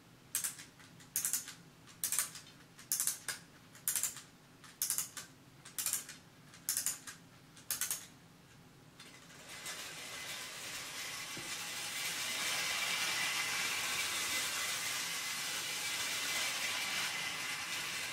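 Post-war Hornby tinplate clockwork locomotive being wound up: nine ratcheting clicks of the spring being wound, about a second apart. About nine and a half seconds in, the released clockwork motor starts running as the locomotive travels round the tinplate track, a steady whirring rattle that grows louder.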